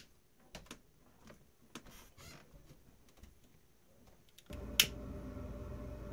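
Light clicks and handling, then a sharp click and a butane torch flame burning steadily from about four and a half seconds in, heating heat-shrink tubing over a soldered wire joint.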